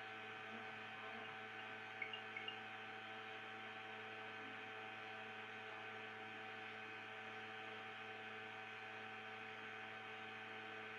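Steady electrical mains hum, an unchanging buzz of several tones, with a few faint clicks about two seconds in.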